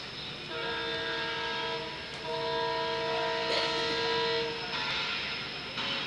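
Diesel locomotive horn, WDP4, sounding two blasts of a multi-note chord: a short one, then a longer, louder one of about two and a half seconds. The blasts are heard over the steady running noise of the train's coaches.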